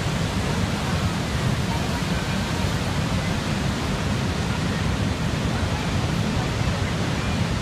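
Victoria Falls: a steady, heavy rush of falling water and spray, with most of its weight in a deep low rumble.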